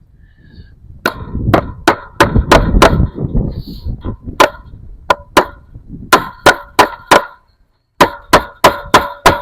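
A hammer driving fence staples to fasten wire fencing: sharp, ringing metal-on-metal strikes in quick runs of about three a second, with short pauses between the runs.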